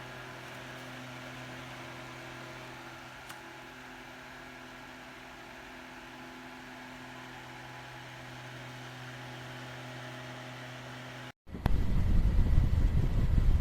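KEYNICE rechargeable USB clip fan running steadily: an even motor hum under a soft rush of air. About eleven seconds in, the sound cuts off, and a much louder rush of air buffets the microphone.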